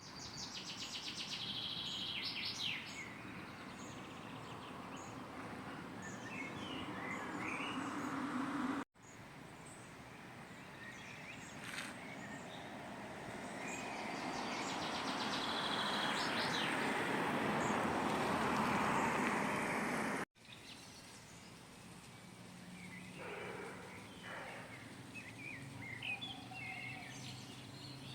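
Outdoor town ambience in three short clips with abrupt cuts between them: songbirds chirping and trilling over a steady background noise. In the middle clip a broad rushing noise swells over several seconds, then is cut off.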